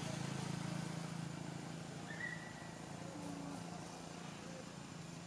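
Steady low background hum, with a brief high chirp about two seconds in.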